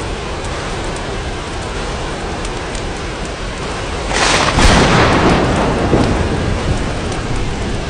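Steady rain falling, with a clap of thunder about four seconds in that rises sharply, peaks over the next second and rumbles away over a couple of seconds.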